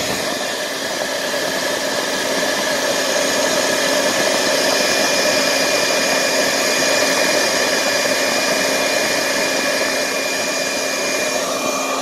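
Handheld hair dryer running steadily, blowing air into a frost-covered freezer compartment: a constant rush of air over a motor hum.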